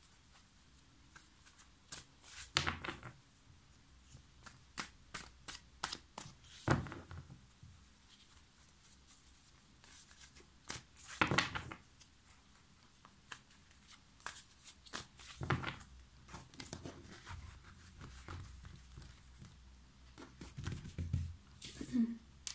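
A deck of tarot cards being shuffled and handled by hand, giving a scattered run of crisp card clicks and rustles with short pauses between them.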